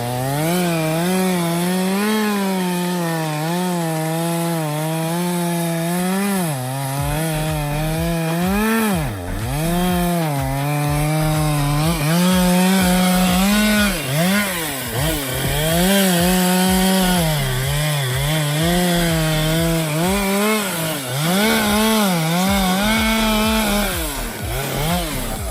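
Chainsaw cutting through a thick tree trunk on the back cut. The engine's pitch keeps dipping under load and climbing back as the chain bites and clears.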